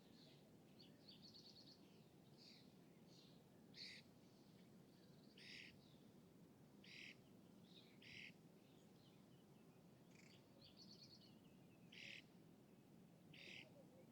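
Faint songbird calls at a lake: short high chirps every second or two, with a quick ticking trill twice, over a steady low hum of distant city.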